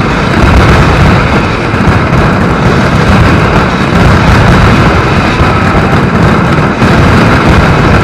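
Mascletà barrage of masclets (thunder firecrackers) going off in rapid succession, the bangs running together into a continuous, very loud rumble with no pauses.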